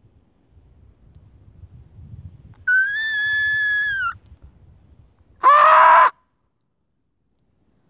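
A person whistles one long, steady note that dips at its end, then gives a short, loud shout, calling out toward deer. A faint low rumble lies underneath.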